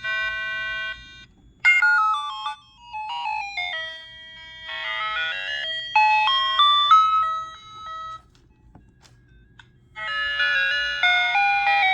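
Vixen 46 sound unit playing an electronic chime melody through a small speaker, with its pitch turned down to the lowest setting before it would cut out. The tune plays in stepped notes, pauses briefly about a second in, breaks off for about two seconds past the middle, then resumes.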